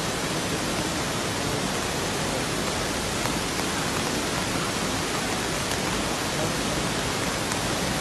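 Steady, even rush of water from a multi-tiered rocky waterfall in spate, swollen with muddy brown floodwater.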